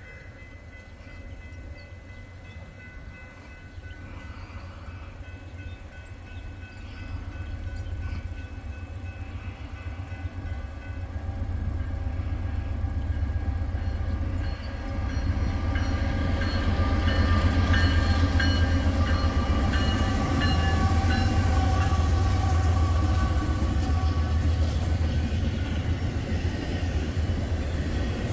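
Norfolk Southern freight train approaching and passing. A low rumble grows steadily louder through the first half and is loudest from about sixteen seconds on. Steady high tones are heard over the first ten seconds, and a busier mix of higher car noise comes in while the train goes by.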